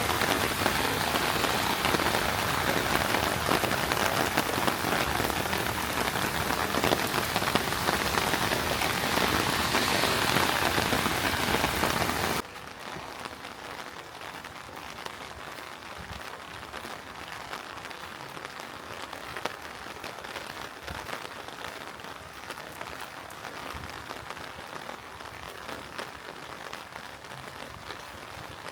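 Heavy rain pouring down, loud and even, then suddenly much quieter about twelve seconds in, where lighter rain and scattered drips go on.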